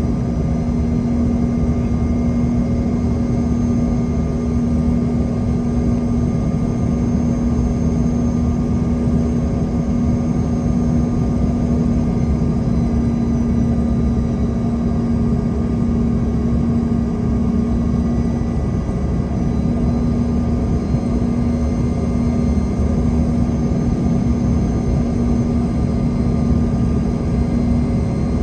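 Cabin noise of a CRJ200 regional jet on approach: a steady rush of airflow with a constant low hum and faint, steady high whines from its rear-mounted GE CF34 turbofan engines.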